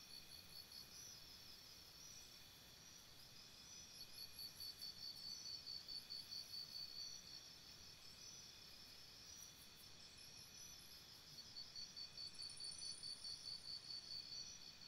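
Field-cricket-type chirping, faint: a high, rapidly repeated chirp, about four a second, in bouts of a few seconds with pauses between them.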